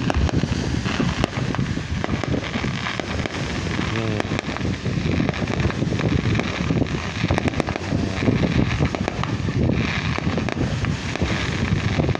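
Distant fireworks bursting and crackling, heard through steady wind buffeting the microphone.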